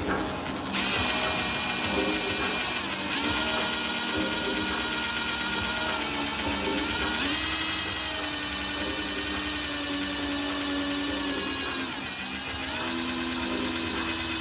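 Electric drill running under load as it bores through the sheet-metal hood, a steady motor whine that shifts in pitch a few times as the speed changes.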